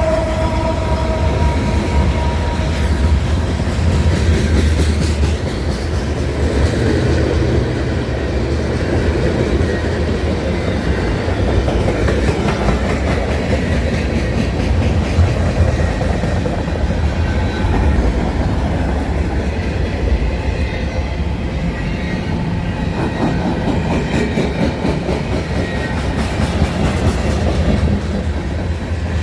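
Train cars rolling past with a steady, loud low rumble and clickety-clack of wheels on the rails. A locomotive's Nathan P5 horn chord fades out about a second in.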